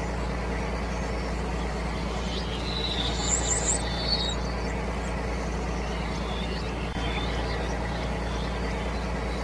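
A low engine running steadily, like a tractor idling. A few short bird chirps come in about three to four seconds in.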